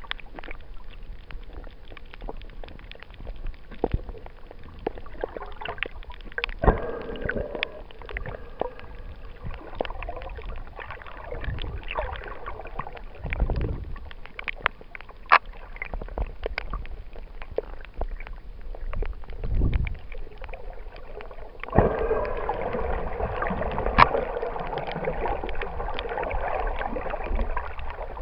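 Underwater sound picked up by a snorkeler's camera: scattered sharp clicks and crackles with occasional low water surges. A denser bubbling gurgle comes in from about 22 seconds in.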